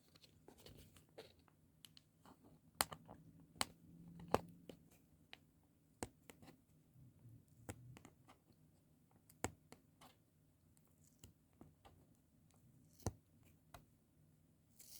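Faint, scattered clicks and light scratching of hands handling and picking at a small sellotaped cardboard box.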